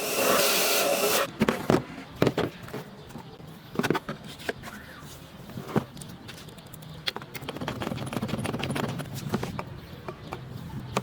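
A power tool running stops about a second in. Scattered sharp clicks and knocks follow, from shotgun parts being worked on, with a low steady hum in the second half.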